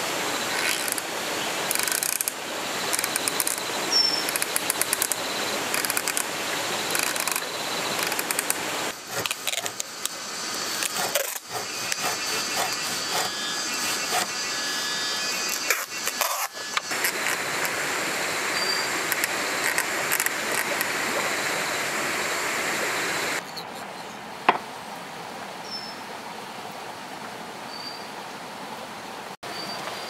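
Hand-cranked bamboo bird-scarer mechanism clattering, with rapid irregular wooden clicks and knocks as it turns. About halfway through, a thin-bladed bow saw rasps steadily through a small wood block. Near the end, a single sharp knock.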